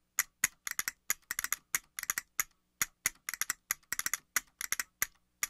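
A run of short, sharp, dry clicks, several a second in uneven clusters, as the sound effect of a show intro.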